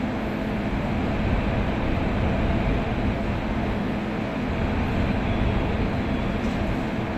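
E653 series electric train pulling into the platform, a steady low rumble of wheels and running gear.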